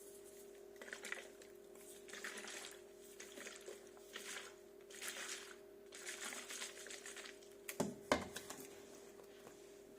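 A water bottle with powdered drink mix being shaken, the liquid sloshing in repeated swishes, with two sharp knocks about eight seconds in. A steady low hum sits underneath.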